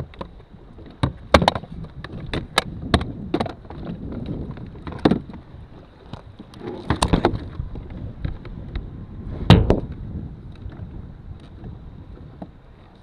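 Irregular knocks and thuds against a plastic fishing kayak, a dozen or so spread unevenly, the loudest about nine and a half seconds in, with wind on the microphone.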